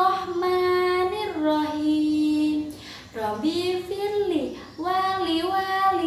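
A woman singing a children's prayer song in a slow, melodic chant, with long held notes and a brief pause about three seconds in.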